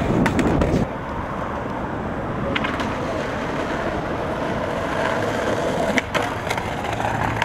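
Skateboard wheels rolling on hard ground, with sharp clacks from the board about two and a half seconds in and again about six seconds in. Wind buffeting the microphone at the start stops suddenly about a second in.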